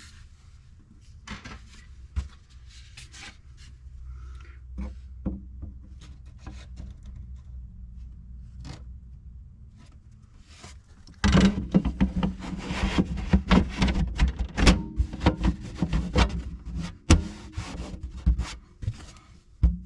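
Access panel being handled and fitted into the cutout in the side of a cabinet: scattered rubbing, scraping and light knocks, growing louder and busier about eleven seconds in.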